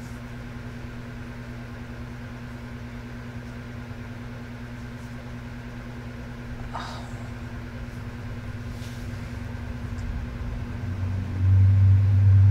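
Steady low hum in a small room. A much louder low hum starts about eleven seconds in.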